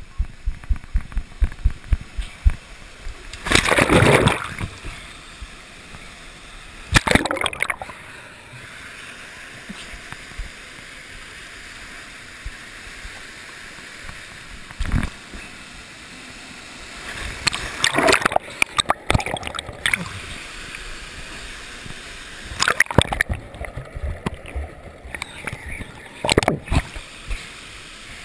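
Water rushing down a water slide under a rider, heard from a head-mounted action camera, with several loud splashes of water breaking over the camera and a final plunge into the splash pool. At the start, footsteps on wet pool decking thump a few times a second.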